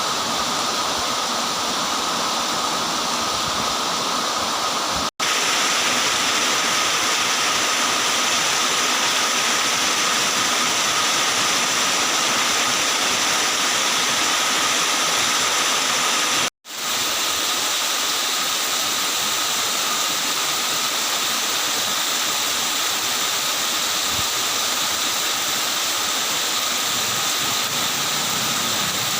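Heavy, torrential rain pouring down as a steady, dense hiss. It cuts out for an instant twice.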